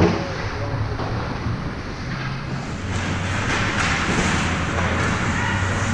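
Ice hockey rink ambience during a game: a steady low hum under a wash of rink and crowd noise, with a sharp knock at the very start. The noise grows fuller from about three seconds in.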